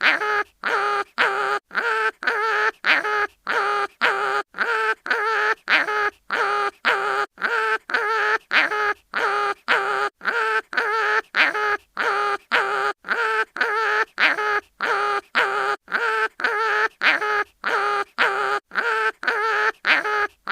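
Cartoon sound effect of an animal crying in pain: one short, wavering, pitched cry repeated over and over, about twice a second, with a brief gap between each.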